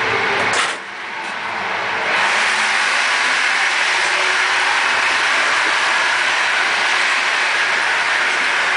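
Running noise of a moving passenger train heard from the carriage gangway and vestibule: an even rush of wheels on rails, with a sharp knock about half a second in, growing louder and steady from about two seconds in.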